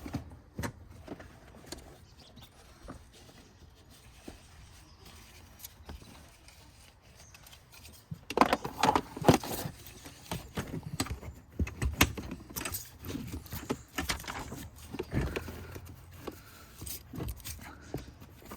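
Handling noise from a car seat installation: a vehicle seat belt being threaded through the car seat's belt path, with the metal latch plate clinking and the belt rubbing. Scattered clicks at first, then a busier burst of clatter and rubbing about eight seconds in.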